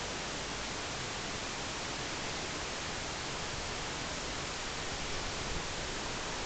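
Steady, even hiss with no distinct sounds standing out.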